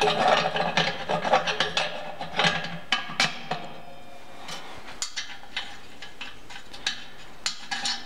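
Steel front cover of a homemade waste-oil stove scraping and clanking against the stove body as it is handled and fitted back on with its T-handle screw clamp: a dense run of scrapes and knocks in the first three seconds, then scattered clicks.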